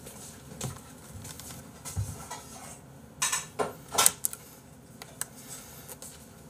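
Plastic takeout food trays being handled and their clear lids pried open: scattered plastic clicks and crackles, with a cluster of sharper snaps about three to four seconds in.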